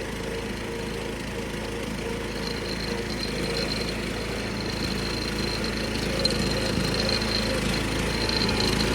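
Engine of a 1976 John Deere 300 riding mower running steadily as the tractor drives along, with a thin steady high whine alongside that grows stronger after about two seconds.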